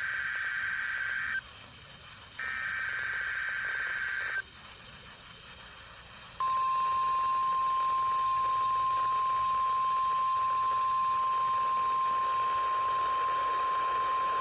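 NOAA Weather Radio emergency alert heard over a weather radio receiver: two buzzy bursts of SAME digital header data, about two seconds each, mark the start of a required weekly test. About six seconds in, the steady 1050 Hz warning alarm tone begins and holds.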